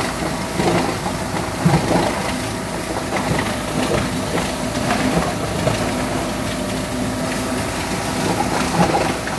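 Plastic-processing machinery running loud, with a steady hum under irregular rattling and clattering knocks. It starts and stops abruptly.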